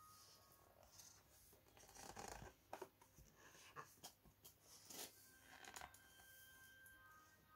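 Faint handling of a cardboard board book: a thick page turned over in the first couple of seconds, then fingers rubbing and tapping on the pages, with a few small taps.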